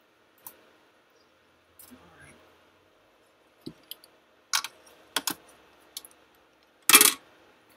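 Irregular sharp clicks and taps of small hard objects being handled, about nine in all, with the loudest, longer clatter about seven seconds in.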